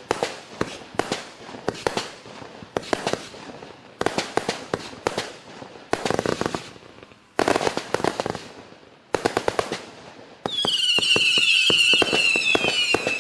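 A Klasek 'Fireworks show 268' fireworks cake firing: volleys of sharp bangs and crackling breaks coming in clusters every second or two. About ten and a half seconds in, a loud chorus of high whistles starts, falling slightly in pitch, with reports still going off under it.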